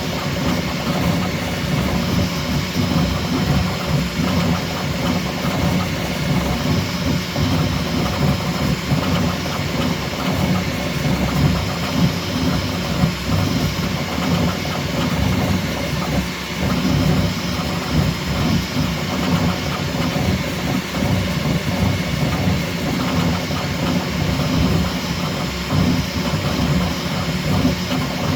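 Bambu Lab X1C 3D printer printing at high speed: its stepper motors buzz in quick, constantly changing bursts as the toolhead darts about, over a steady high fan whine.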